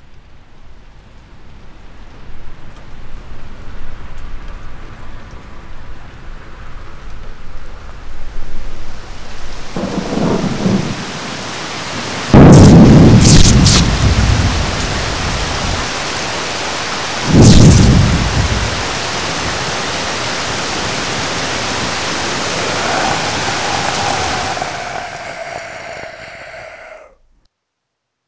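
Thunderstorm sound effects: steady rain that builds up, two loud thunderclaps a few seconds apart near the middle with a sharp crackle of lightning, then the rain fading and cutting off shortly before the end.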